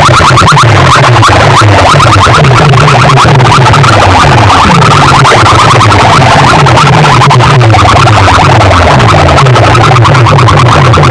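Electronic DJ music played very loud through a large sound-hire speaker system, heavily distorted, with a stepping bass line and fast, dense synthesizer effects.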